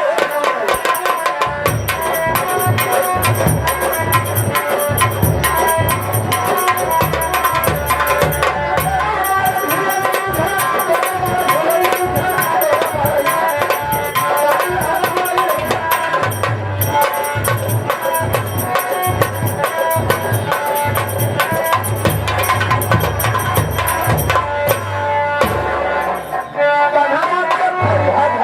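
Instrumental interlude of a folk song: fast, dense hand drumming under a melody, with a deep bass that comes in about a second and a half in and drops out near the end.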